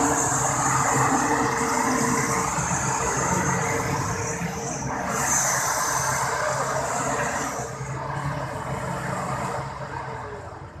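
Toyota Hilux pickup's engine running under load as it crawls through deep mud, with the wheels churning in the mud; the sound fades near the end.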